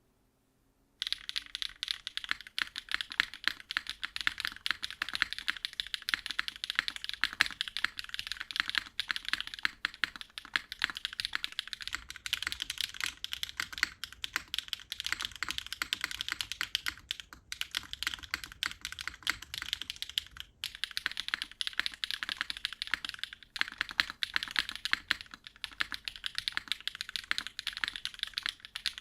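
A custom mechanical keyboard with HMX KD200 switches being typed on quickly and continuously, a dense run of key clacks starting about a second in, with a couple of brief pauses.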